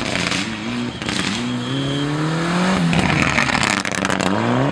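Rally car engine at full throttle, its pitch climbing several times with short drops between as it shifts up through the gears.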